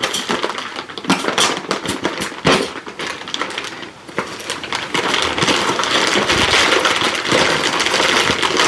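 Cardboard box and packing material being handled and opened: a run of sharp clicks, taps and scrapes, then steady rustling from about five seconds in.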